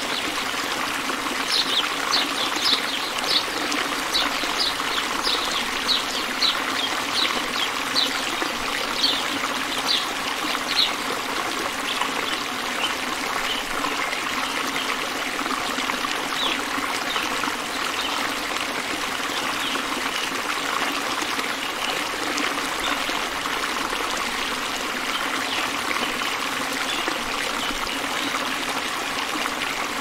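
Birds singing over a steady background of running water. For the first ten seconds or so, one bird repeats a short, high, falling note about twice a second; fainter calls go on after that.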